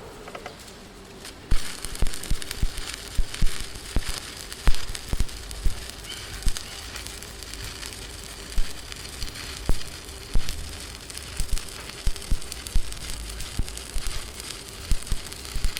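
Electric arc welding on an excavator cylinder: a steady crackling hiss from the arc with irregular sharp pops, starting about a second and a half in.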